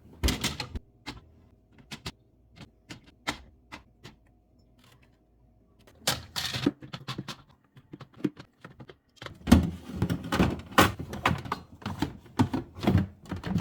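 Food containers and packaging being handled and set down in a refrigerator: scattered light clicks and knocks, a rustle about six seconds in, and a dense run of clattering knocks over the last four seconds.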